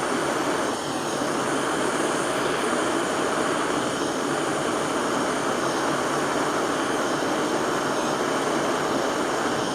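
Big soldering torch flame burning with a steady rushing roar while it heats a silver ring, bringing the solder up to flow so the wire tacks onto the job.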